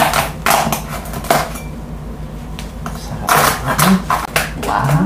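Crisp skin of a whole roast suckling pig (lechon) cracking under a kitchen knife's blade: a run of sharp, brittle crackles and knocks, one cluster near the start and another past the three-second mark.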